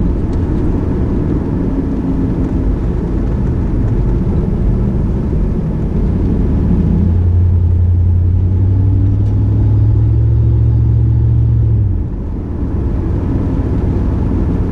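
Engine and road noise inside the cabin of a 1993 Chevrolet Camaro Z28 on the move, its 5.7-litre LT1 V8 making a steady low drone. The drone grows stronger about seven seconds in and drops off suddenly about twelve seconds in, as the car comes off the throttle.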